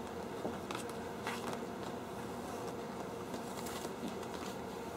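Faint rustling and sliding of white posterboard sheets being moved and smoothed by hand, with a few light scuffs about a second in and near the end, over a steady background hiss.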